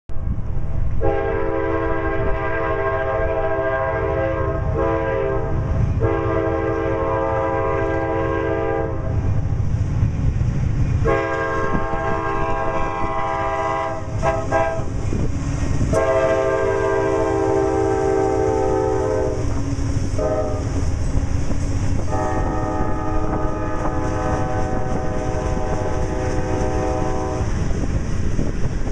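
CSX freight diesel locomotive's multi-note air horn sounding a series of long blasts with a few short ones, over the deep rumble of the passing train. Loaded rock gondolas then roll by with wheels clacking on the rails.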